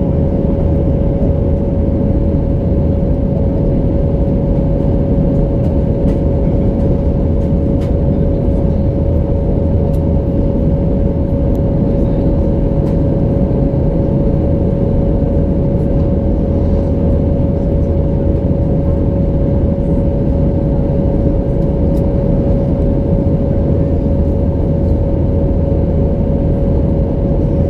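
Steady cabin noise inside an Airbus A319 airliner in flight: a constant rumble of engines and airflow, with a steady high hum running through it.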